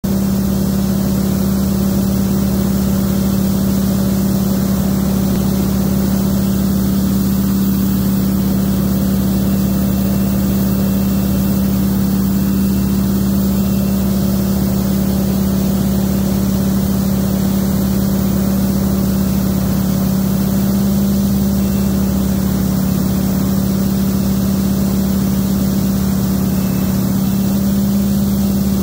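North American T-6 Texan's Pratt & Whitney R-1340 radial engine and propeller droning steadily, heard from inside the cockpit, with a hiss of rushing air over it.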